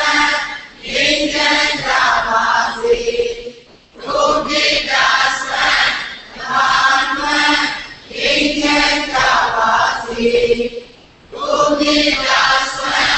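Buddhist chanting by a monk into a microphone: a steady, sung recitation in phrases of two to three seconds with short pauses for breath between.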